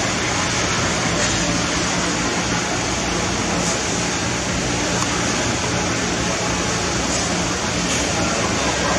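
Steady background noise with a low hum running under it, even and unbroken; no separate knife strokes stand out.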